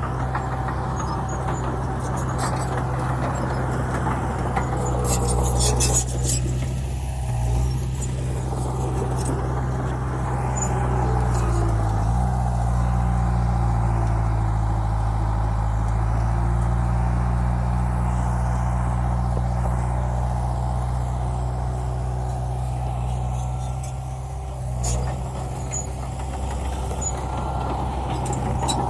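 Bulldozer's diesel engine running under load, its pitch dipping and recovering a few times, most clearly about twelve seconds in. Several sharp clicks come around six seconds in and again near the end.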